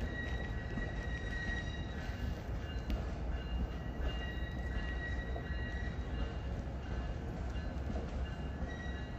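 Freight train of gondola cars rolling past with a steady low rumble, and high wheel squeal that comes and goes.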